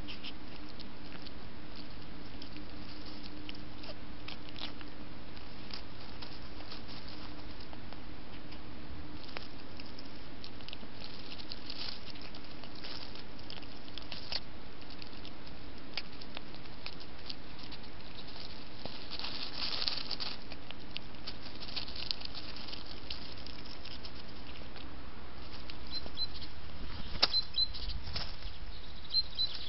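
Stone marten foraging in dry leaf litter: scattered rustles and small clicks over the trail camera's steady hiss. Near the end come a few short high bird chirps and a louder leaf rustle.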